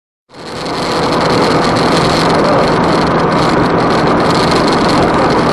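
Steady car engine and road noise, starting out of silence and swelling up over the first second.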